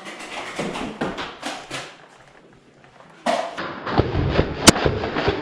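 Nerf blasters firing and foam darts striking in a close exchange: a run of quick clicks and thuds, a short lull, then a louder flurry of hits with one sharp crack near the end.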